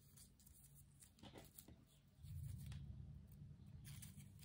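Near silence: faint rustling of a cut-paper snowflake being unfolded by hand, with a faint low hum that comes in about two seconds in.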